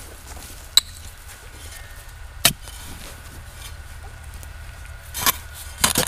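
Spade blades chopping into sandy forest soil: sharp strikes, two a couple of seconds apart, then a quicker run of them near the end.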